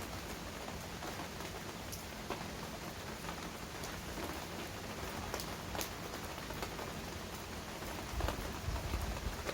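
Steady rain falling on hard surfaces, with scattered sharp drips and splats standing out. A low rumble builds near the end.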